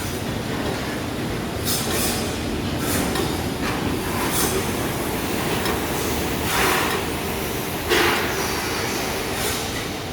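Steady loud machinery noise, broken by about five short hissing bursts.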